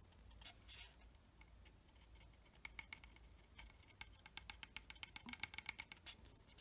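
Faint, quick ticking and scratching of a silver pencil's tip dabbed and drawn along the edge of a plastic scale model, several small strokes a second starting about two and a half seconds in.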